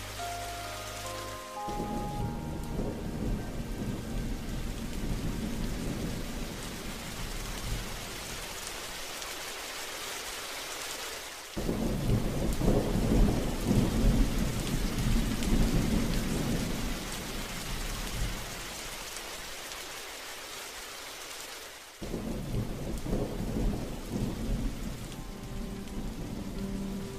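Steady rain with two long rolls of thunder, the first starting suddenly about eleven seconds in and fading slowly, the second about twenty-two seconds in. Soft music fades out in the first two seconds and comes back near the end.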